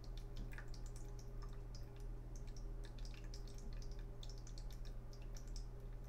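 Faint, irregular small clicks and ticks over a steady low electrical hum.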